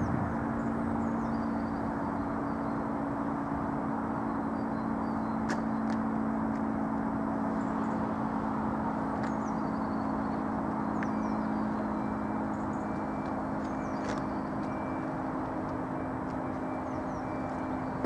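Tower-mounted warning siren sounding one steady, unchanging low note during a siren test.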